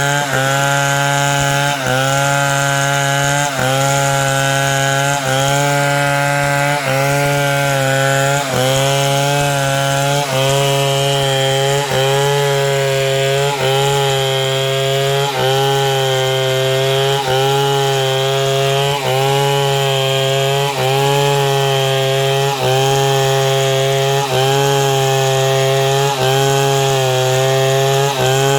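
Two-stroke chainsaw running hard while cutting through wood, its engine pitch dipping briefly under load about every second and a half and then picking back up.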